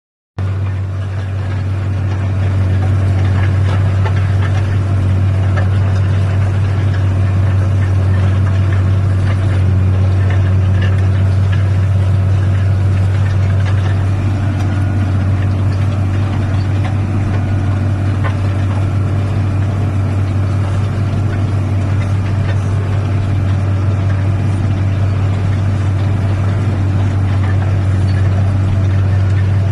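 Tractor engine running steadily with a low drone while pulling a plough.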